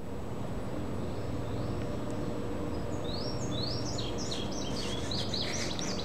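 Indigo bunting singing: a quick run of high chirping notes at shifting pitches, starting about halfway through, over a steady low background rumble.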